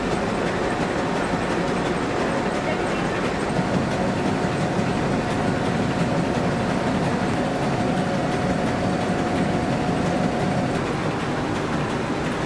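Tatham woollen carding machine and its tape condenser running steadily: a dense mechanical rattle of rollers and gearing, with a faint steady whine that stops about eleven seconds in.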